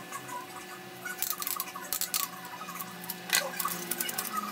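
Sheet of cardstock being folded and its crease pressed flat by hand on a cutting mat: dry paper rustling and scraping with a few sharp ticks, the sharpest about three seconds in.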